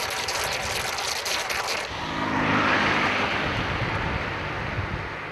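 Outdoor street ambience with a steady rushing noise, crackly at first, that swells about two and a half seconds in and then eases off.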